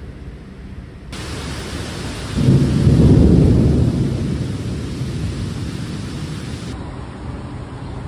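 Heavy rain hissing steadily from about a second in. A roll of thunder rumbles up loudly a couple of seconds later and fades away over the next two seconds. Near the end the rain sound cuts off and quieter outdoor road ambience takes over.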